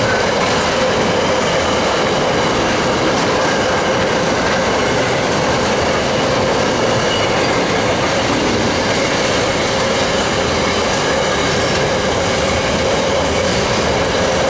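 Container wagons of a long freight train rolling past on steel rails: a loud, steady noise of wheels on track with a faint steady tone running through it.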